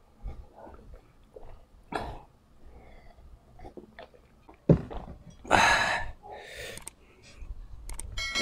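Sipping and swallowing coffee from a glass mug, with small mouth clicks, then the mug knocked down on the wooden table a little before halfway, followed by two loud breathy sounds from the mouth.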